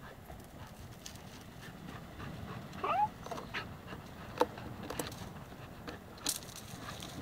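A dog panting as it gnaws and tugs at a driftwood log, with scattered sharp clicks and knocks, the loudest a little after six seconds in. A brief rising squeak sounds about three seconds in.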